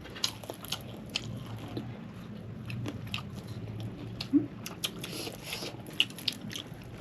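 Close-up eating sounds: irregular crisp crunches and chewing as crispy KFC fried chicken is bitten and chewed.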